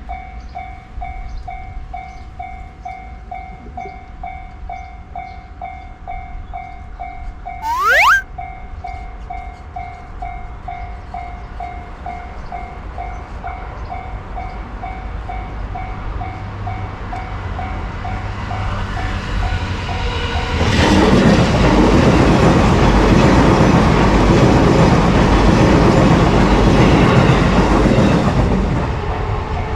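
Japanese railroad crossing alarm ringing its steady electronic bell at about two strokes a second, with a short loud rising tone about eight seconds in. About twenty seconds in, a Nambu Line electric commuter train passes over the crossing for some eight seconds, loud enough to bury the bell.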